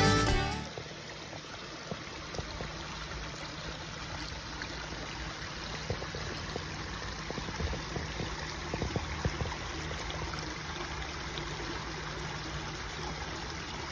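A small rocky brook trickling and splashing between stones, a steady sound of running water.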